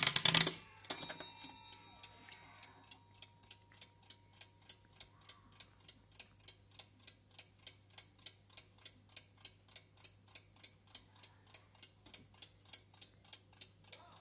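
Smiths interval timer: a clatter of clicks as its side levers are worked, and a sharp click with a short metallic ring about a second in. After that its clockwork movement ticks fast and evenly.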